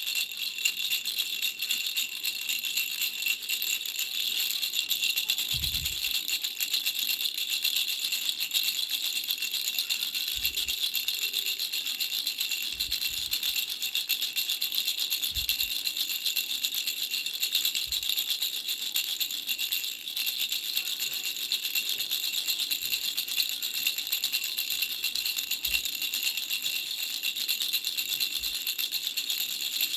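Baby's three-flower bell rattle shaken without pause: a fast, even jingling of small bells, with a few soft low bumps from handling.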